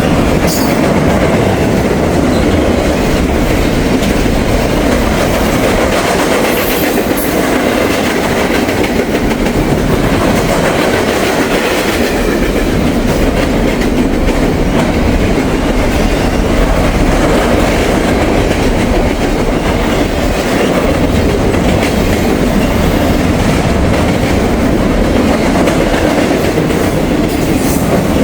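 Norfolk Southern freight train passing at speed, its cars' wheels clattering steadily over the rails.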